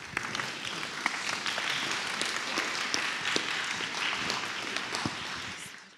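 An audience applauding, with many hands clapping, fading out near the end.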